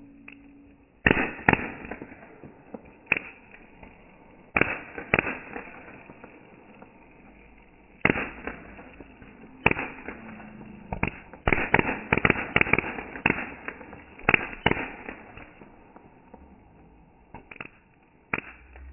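Spark-spraying firework going off, with irregular sharp bangs and pops, some alone and some in quick clusters, over a faint steady hiss.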